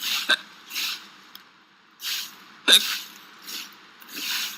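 Two short, sharp hiccup sound effects, about two and a half seconds apart, over repeated scratchy swishes of a rake dragged through dry leaves, about one a second.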